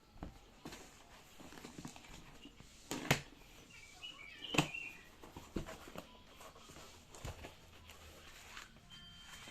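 A few scattered sharp knocks and clicks over a faint room background, the two loudest about three and four and a half seconds in.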